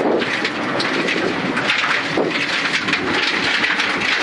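Suzuki Ignis Sport rally car at speed on a gravel road, heard from inside the stripped, roll-caged cabin: a steady, loud rumble of engine and tyre noise, with loose gravel constantly clattering against the underbody.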